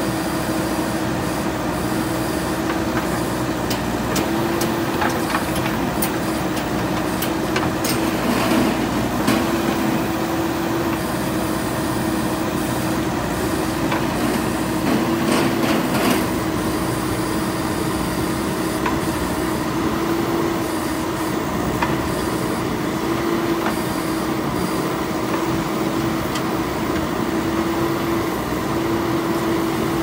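JCB 3DX backhoe loader's diesel engine running steadily under hydraulic load while the backhoe arm digs, with a steady hum. A few short knocks come around 8 and 16 seconds in.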